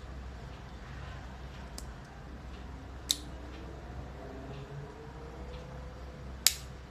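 Two sharp mechanical clicks about three and a half seconds apart, the second slightly louder, over a low steady hum: a miniature pistol's action being worked.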